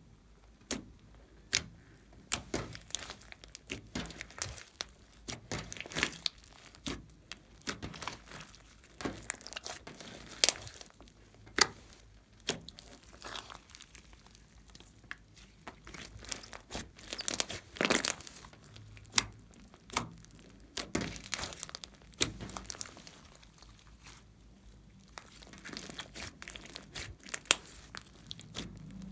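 Glossy slime with foam beads being pressed, kneaded and stretched by hand, giving an irregular run of sharp wet clicks and pops as trapped air escapes.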